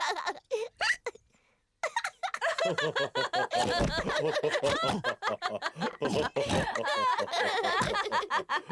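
Several cartoon characters' voices laughing together after a short pause, the laughter overlapping and carrying on.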